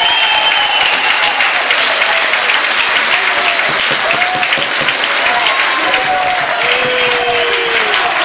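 Large crowd of fans applauding and cheering, with a few shouts rising over the steady clapping.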